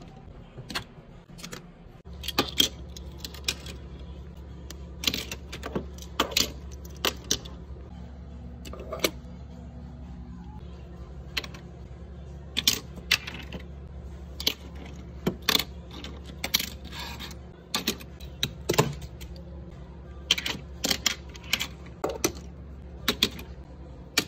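Irregular light clicks and clinks of small hard objects being handled, die-cast Hot Wheels cars and their plastic packaging, dozens of short knocks at uneven spacing. A steady low hum starts about two seconds in.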